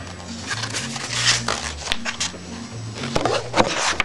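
Background music with low held notes that change every second or so, with several short hissy rustles over it.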